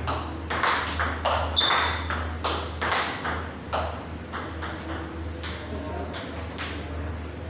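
Table tennis rally: the celluloid-type ball clicking back and forth, bouncing on the table and struck by rubber paddles in a quick, even rhythm of about three to four hits a second.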